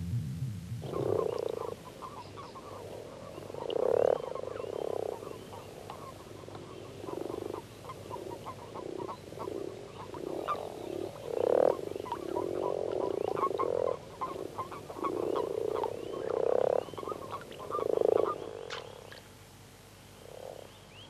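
A chorus of frogs croaking: low, grunting calls in overlapping bouts, starting about a second in and fading near the end.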